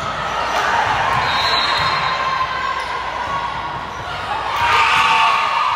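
Indoor volleyball game sounds: the ball being hit and bouncing on the hard court amid a mix of voices, echoing in a large hall.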